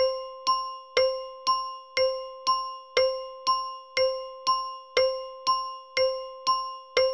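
Quiz countdown timer sound effect: evenly spaced ticks, about two a second, each ringing briefly with a clear tone, those on the whole seconds a little stronger.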